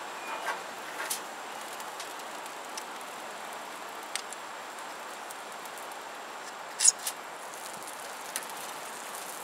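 Sausages sizzling steadily on a grill grate, with a few short clicks of a knife and tongs against the grate and the meat; the sharpest click comes about two-thirds of the way through.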